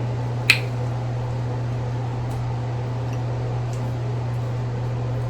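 A steady low hum, with one sharp crack about half a second in from a crawfish claw shell being broken, then a few faint clicks.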